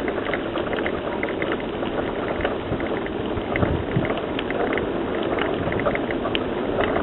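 Bike tyres rolling over a rough dirt trail: a steady rumble with many small irregular crackles and ticks.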